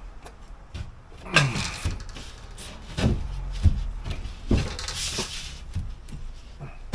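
A gypsum board panel being handled and set against the wall: a handful of separate knocks and bumps with some scraping between them.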